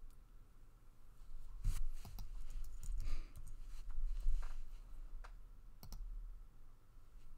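Computer mouse clicks: several short, sharp clicks spread over a few seconds, over a low steady hum.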